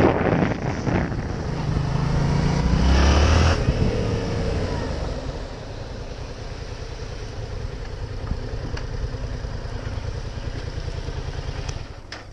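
Yamaha MT-07's parallel-twin engine revving up about two to three seconds in, then falling in pitch as it decelerates and settling into steady low-rev running, before dropping off near the end.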